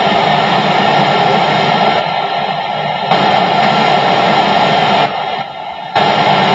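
Repaired wireless Bluetooth DJ speaker playing loud music as a test, heard as a dense, noisy sound that changes character every second or two; the speaker's sound is working again after the fix.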